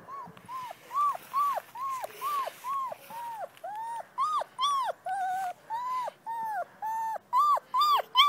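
German Shepherd puppy whining, a quick series of short high-pitched cries, each rising then falling in pitch, about two and a half a second, growing louder near the end.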